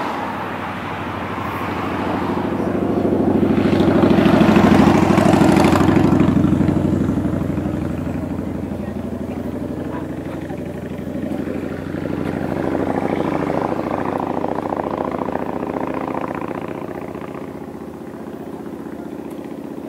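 Motor vehicle engines passing by on the road: the first grows to its loudest about five seconds in and fades away, and a second swells in and out a little past the middle.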